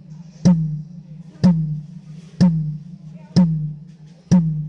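A tom-tom on a drum kit struck alone at an even pace, five single hits a little under a second apart, each leaving a low ringing tone that fades before the next hit. This is a drum being checked one at a time during a sound check.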